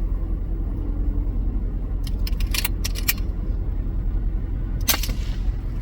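Idling vehicle engine rumbling steadily, with a few light clicks and rattles about two to three seconds in. Then a single sharp crack from a .22 Brocock Atomic XR air rifle shot, near five seconds in.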